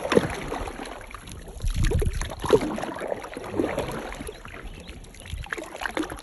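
A homemade paddle, a board lashed to a wooden pole, dipping and pulling through river water: several strokes, each a splash and gurgling swirl.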